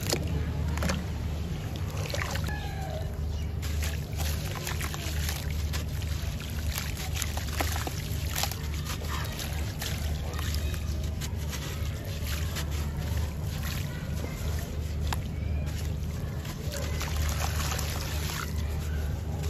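Chunks of sand and cement crumbling in wet hands and dropping into a tub of water: gritty crunching and trickling sand with sloshes and small splashes, full of short crackles. A steady low rumble runs underneath throughout.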